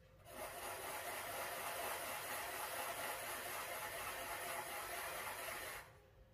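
A steady rushing hiss that switches on abruptly just after the start and cuts off abruptly near the end, lasting about five and a half seconds.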